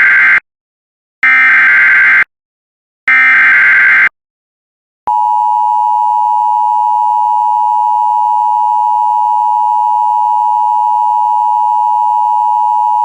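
Emergency Alert System alert opening: the digital SAME header, three short data bursts about a second long each, then from about five seconds in the steady two-tone EAS attention signal held for about eight seconds. Together they mark the start of a relayed severe thunderstorm warning.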